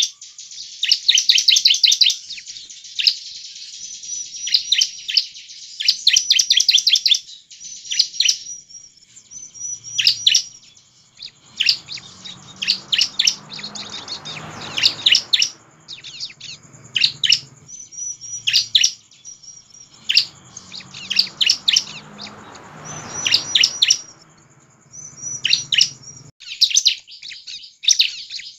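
Bar-winged prinia (ciblek) singing: fast strings of sharp, high-pitched chirps, each burst lasting about a second, repeated with short gaps between.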